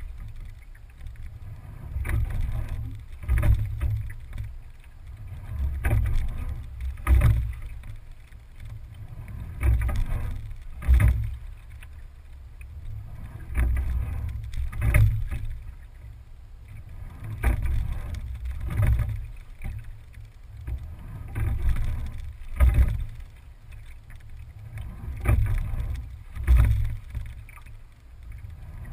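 Single scull being rowed at a steady, low stroke rate, heard close up from the stern: about every four seconds the stroke swells and peaks in sharp knocks of the oars working in their gates, with water rushing along the hull, over a constant low rumble.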